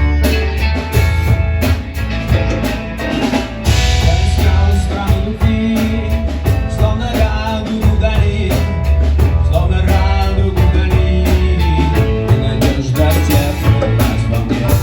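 Live rock band playing an instrumental passage: a drum kit keeping a steady beat under heavy bass and melodic instrument lines.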